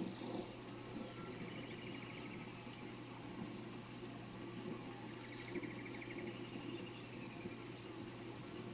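Steady rain falling with the patter of drops. Small birds call over it: two short trills and a few quick high chirps.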